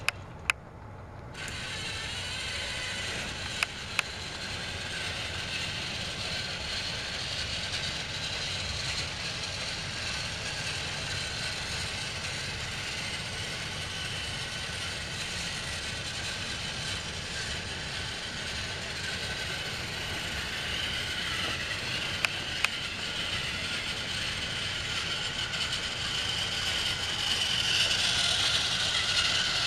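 TrackMaster motorized Thomas toy train running on plastic track, its small electric motor and gears whirring steadily, with a few sharp clicks. The whir starts about a second in and grows louder near the end as the train comes close.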